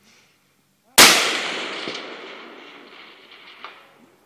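A single .308 Remington 700 rifle shot about a second in, followed by a long rolling echo that fades away over about three seconds.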